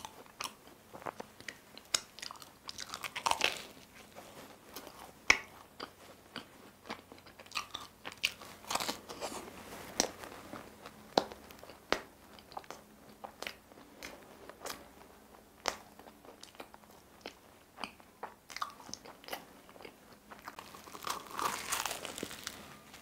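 Person chewing a cream-filled laminated pastry (saengkeurim pandoro), with many short sharp mouth clicks, and a louder stretch of biting into a new pastry near the end.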